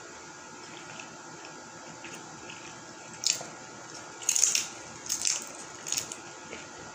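Crunching bites and chewing of a tortilla-chip nacho loaded with fajita meat and peppers: a handful of short, loud crunches starting about three seconds in, the loudest around four and a half seconds.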